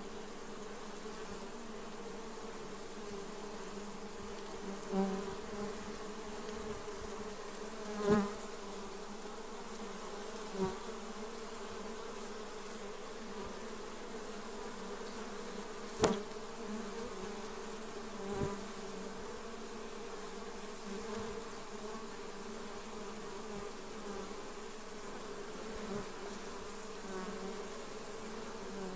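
Many honey bees buzzing in a steady, layered hum, with single bees passing close to the microphone several times as short louder buzzes.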